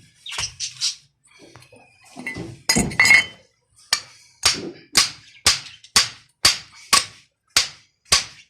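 A few scattered metal clinks and knocks, then from about four seconds in a steady run of hammer blows on metal, about two a second, as an electric water pump motor is knocked apart to reach its bearings.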